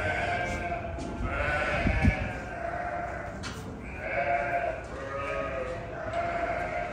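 Sheep bleating, several calls one after another and overlapping, with a dull low thump about two seconds in.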